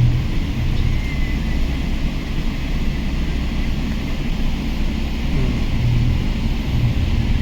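Steady low rumble of a Boeing 777-300's jet engines and airframe heard inside the passenger cabin.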